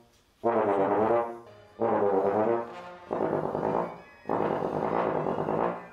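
Bass trombone playing four long held notes, each a second or more, the last the longest, with short breaks between them.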